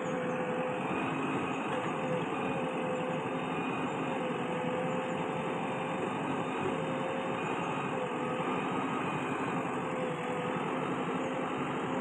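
JCB 3DX backhoe loader's diesel engine running steadily as the machine creeps forward, with a steady whine over the engine note.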